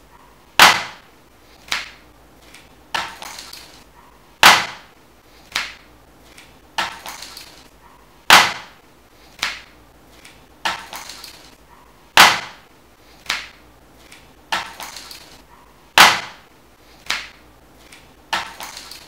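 A repeating pattern of sharp percussive hits: a loud one about every four seconds, each followed by two softer ones, the second trailing off in a brief rattle.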